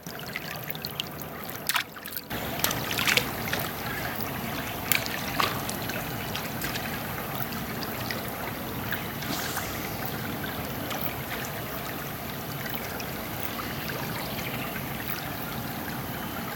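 River water running and trickling, a steady rush that grows louder about two seconds in, with a few faint clicks.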